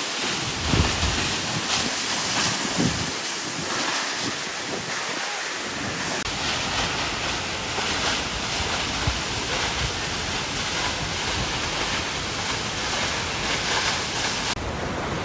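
A large waterfall pouring heavily: a steady rush of falling water crashing onto rocks below, with wind buffeting the microphone in gusts during the first few seconds.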